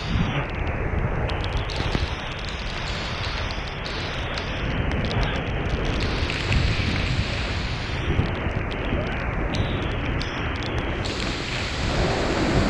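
Waterfall roaring close at hand: a steady rush of falling water with a heavy low rumble.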